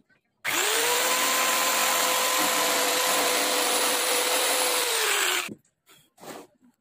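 A handheld electric power tool motor runs steadily with a whine for about five seconds, starting suddenly and winding down in pitch as it is switched off.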